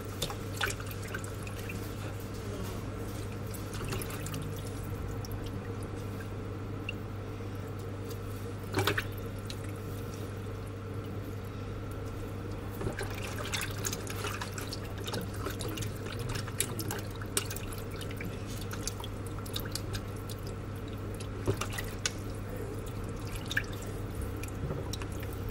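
Hands rubbing and massaging raw chicken pieces in a bowl of water in a sink, with small splashes and drips throughout and one louder splash about nine seconds in. A steady low hum runs underneath.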